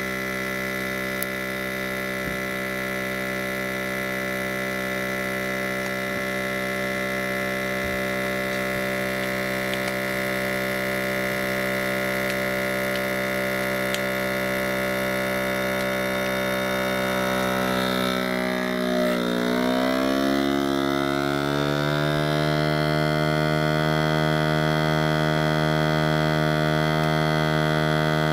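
Inkbird Plus vacuum sealer's pump running steadily as it draws the air out of a bag holding a pork knuckle. About two-thirds of the way through, its pitch dips and wavers, then settles into a steady, slightly louder hum.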